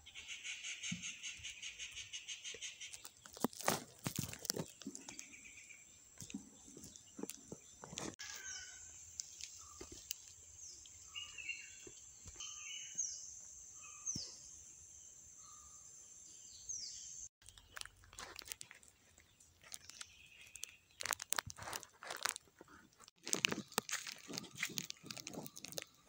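Insects and birds, with crunching. Insects drone steadily at a high pitch, and a pulsing insect buzz is heard in the first few seconds. A bird repeats a short falling whistle about half a dozen times mid-way, over frequent sharp crunching and handling noises.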